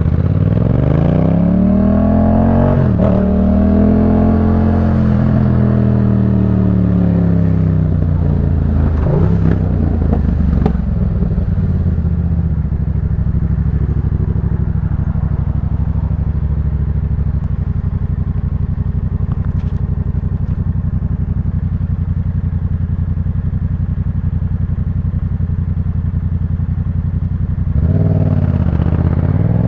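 Yamaha MT-07's 689 cc parallel-twin engine on the move through a Jeskap K4 full exhaust. The revs rise and fall repeatedly for the first ten seconds or so, then hold steady from about twelve seconds in, and climb again near the end.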